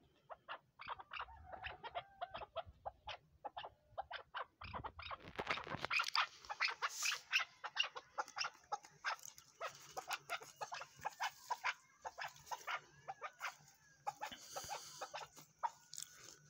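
Chukar partridge giving a steady run of short clucking notes, several a second, with a brief louder burst of noise about five seconds in.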